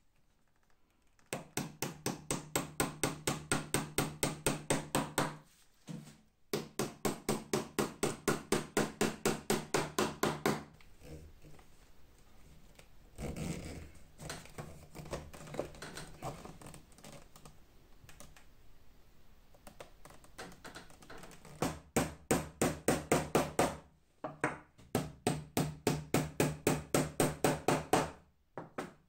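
Small hammer tapping brass decorative tacks into a leather bellows. The taps come in four fast runs of about five light strikes a second, each a few seconds long, with a quieter stretch of handling noise between the second and third runs.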